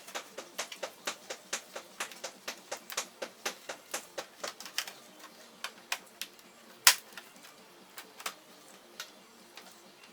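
Quick run of sharp clicks and taps, about three to four a second, thinning out after about five seconds, with one louder click near the end of the run: parts of a Toshiba Qosmio G40 laptop being handled during a teardown.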